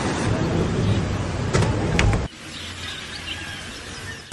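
Loud outdoor rumble and hiss, with a couple of sharp clicks, that cuts off suddenly about two seconds in. A much quieter background follows, with a few faint high chirps.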